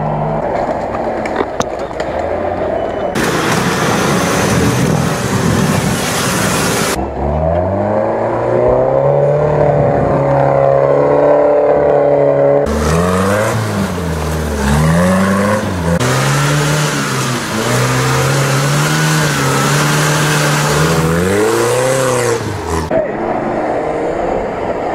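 Off-road 4x4 engines revving under load as they climb a muddy gully, the pitch rising and falling again and again, with stretches of loud rushing noise. The sound changes abruptly several times.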